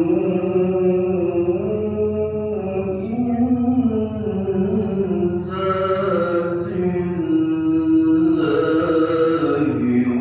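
A male qari reciting the Quran in melodic tilawah style, one voice holding long notes that bend and waver in pitch. It rises to a brighter, higher phrase about halfway through and again near the end.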